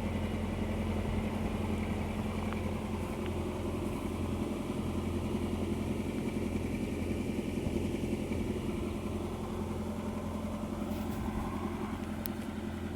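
Car engine idling steadily, an even low hum that holds the same pitch throughout.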